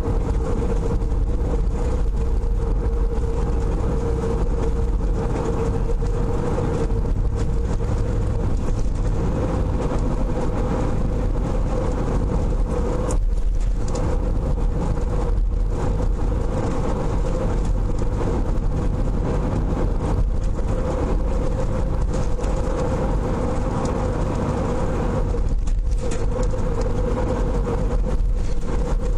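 A car's engine and tyres droning steadily as it drives, heard from inside the cabin, with a steady hum underneath.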